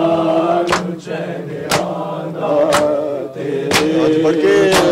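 Men chanting a noha lament, with sharp chest-beating (matam) strikes landing in time about once a second, five in all.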